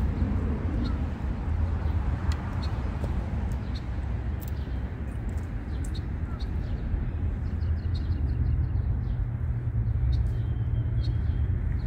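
Steady low wind rumble buffeting the microphone, with faint short high ticks scattered through it, most of them around the middle.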